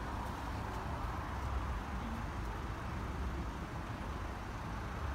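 Steady low noise of a queue of road traffic idling at lowered level-crossing barriers, with an uneven low rumble underneath.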